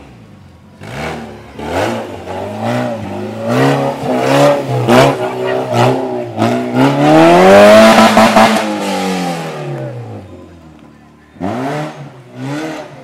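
Maruti Gypsy 4x4's engine revving hard in repeated throttle bursts as it climbs over loose dirt mounds, its pitch rising and falling with each burst. The longest and loudest rev comes about seven to nine seconds in.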